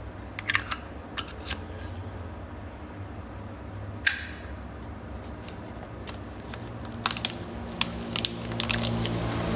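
Sharp metallic clicks and clinks from a Zippo lighter being handled, with one louder snap about four seconds in and a cluster of lighter clicks near the end, over a steady low hum.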